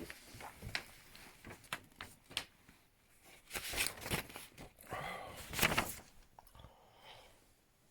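Paper being handled: a run of rustles, crinkles and short tearing sounds, with a louder stretch near the middle, as a letter envelope is torn open.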